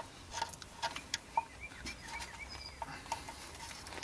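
Irregular small clicks and taps of a screwdriver prying at the plastic plug on an oil pressure sensor, until it comes unplugged. A bird chirps a quick series of short notes in the background.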